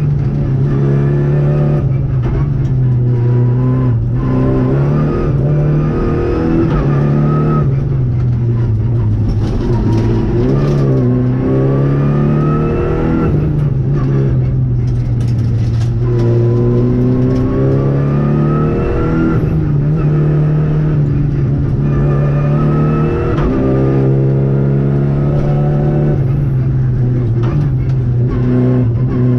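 Renault Clio Rally5's 1.0-litre three-cylinder turbo engine, heard from inside the cabin at stage pace, revving hard. Its pitch climbs under acceleration and drops again and again at gear changes and braking.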